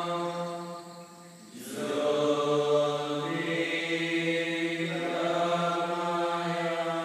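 Slow meditative chant of long, sustained notes held on a steady pitch. About a second in it fades into a short pause, then resumes on a slightly lower note and later steps back up.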